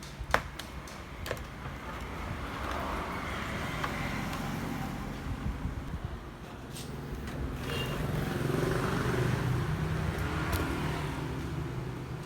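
Motor vehicles passing on a road, their noise swelling and fading twice, with a few sharp clicks near the start.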